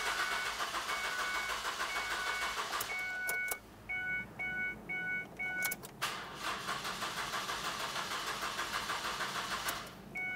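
Starter motor cranking the 2006 Ford Escape's 2.3-litre four-cylinder in two bursts of a few seconds each, with a pause between, and the engine does not start: the fuel pressure and fuel in the lines have been drained. A dashboard warning chime beeps repeatedly throughout.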